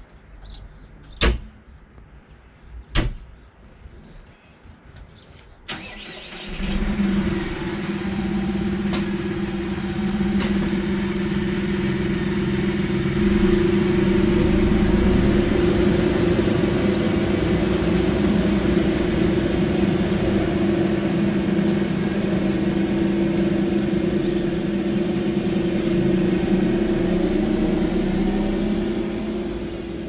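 Two sharp knocks, then about six seconds in a tractor engine starts and keeps running steadily at a constant speed.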